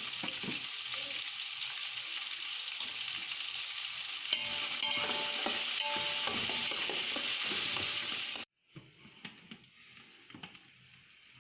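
Sliced onions frying in hot oil in a large pot, sizzling steadily while a ladle stirs them, with a few metal scrapes and a faint ringing tone about halfway. The sizzle cuts off suddenly about eight and a half seconds in, leaving a much fainter sizzle with light clicks.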